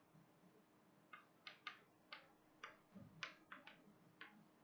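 Chalk writing on a blackboard: a faint, irregular string of short taps and scratches, one per stroke.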